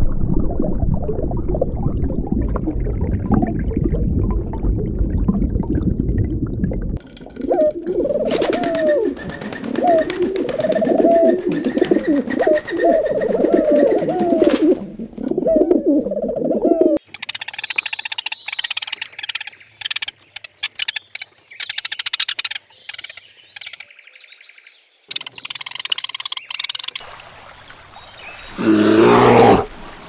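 Domestic pigeons cooing: a run of low, rolling coos for about ten seconds, after a low rumble. Fainter high chirps and clicks follow, then a loud animal sound near the end.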